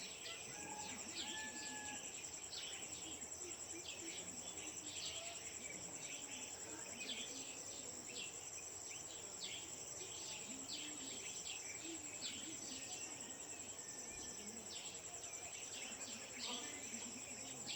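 Early-morning outdoor chorus: a steady high insect trill runs throughout, with many short bird chirps and calls scattered over it.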